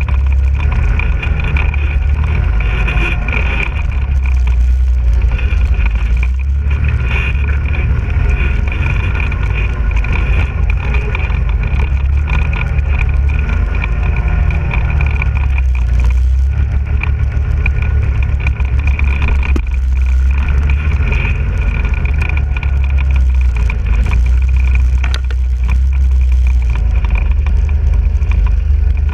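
ATV (quad bike) engine running steadily while riding, with a heavy low rumble and an engine note that wavers slightly with the throttle.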